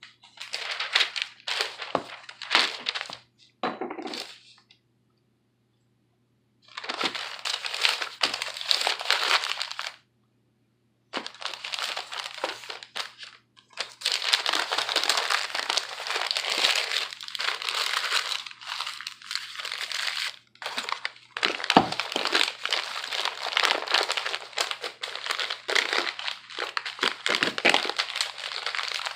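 Paper crumpling and rustling as small items are wrapped for packing, in several spells broken by short silences.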